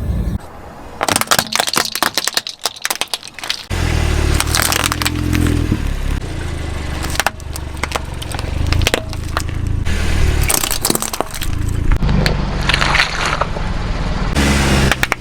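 Rapid cracking and crunching as a car tyre rolls over and crushes brittle objects. A steady low rumble comes in about four seconds in, with more crackling over it.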